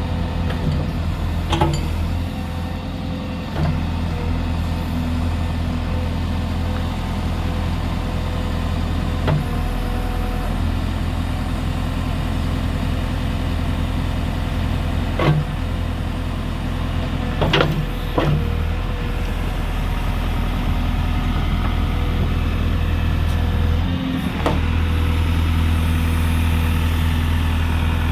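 JCB 3CX backhoe loader's diesel engine running steadily, with a few sharp clunks scattered through, and the engine a little louder for the last few seconds.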